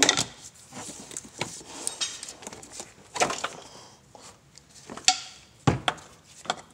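Scattered sharp metal knocks and clinks at irregular intervals as a tight alternator is worked loose from its mounting bracket in the engine bay.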